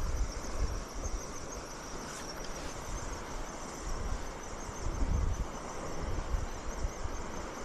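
Wind buffeting the microphone in uneven low rumbles, over a faint, steady high-pitched whine.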